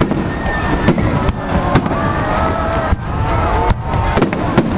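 Aerial fireworks bursting: several sharp bangs over a continuous crackling rumble of shells.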